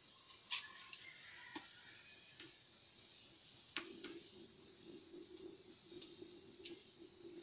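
Faint crackling of a cooking fire under a pot: a few scattered sharp snaps, with a faint low pulsing hum from about four seconds in.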